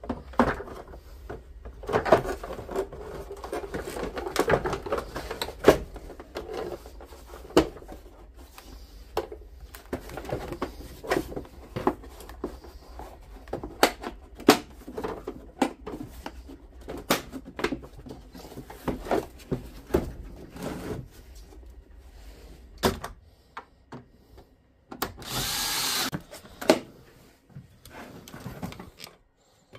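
Plastic housing of a Milwaukee M18 cordless wet/dry vacuum being handled and fitted back together: repeated clicks, knocks and rattles of plastic parts, with a short louder burst of noise near the end.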